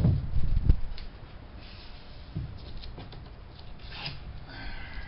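Painter's tape being handled and pulled off the roll: a few heavy bumps in the first second, then light clicks and rasping tears, with a longer rasp near the end.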